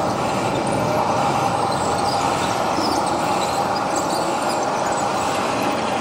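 Radio-controlled scale construction machines running: a steady mechanical drone from their motors, with a faint constant whine.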